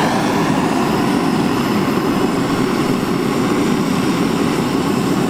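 Handheld kitchen blowtorch burning with a steady hissing flame, caramelizing sugar on top of a soufflé pancake for a crème brûlée crust.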